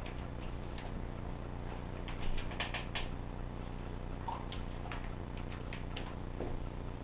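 A dog eating dry kibble: irregular light crunches and clicks, thickest about two to three seconds in, over a steady low hum.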